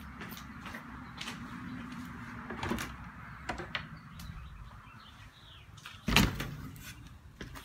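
Old wooden screened window frame handled by hand: a few light knocks, then a loud thump about six seconds in as it is pushed.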